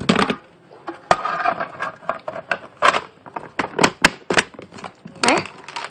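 Plastic packaging being handled and closed, with a series of sharp clicks and knocks and some crinkling between them.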